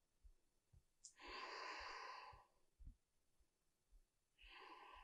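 A woman's soft breathing: two slow breaths, a long one about a second in and a shorter one near the end, taken while holding a yoga balance pose.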